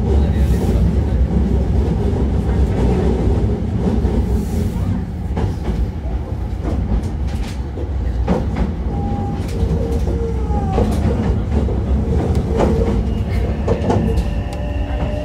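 Hankyu 9000 series electric train (Toshiba IGBT inverter) running at speed: a steady low rumble with scattered rail-joint clicks. Near the end a whine comes in, with one tone rising in pitch.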